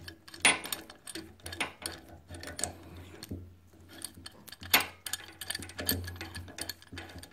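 Steel G-clamp screw being wound in by hand against a brake caliper piston to press it out of its bore, giving irregular metallic clicks and ticks. The loudest clicks come about half a second in and just before five seconds in.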